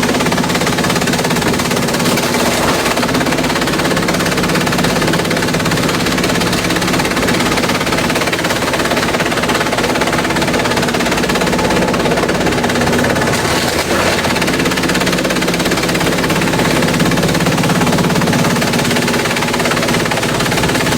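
Industrial bamboo shredder running steadily and loudly: a machine hum under a continuous, dense noise of bamboo being shredded.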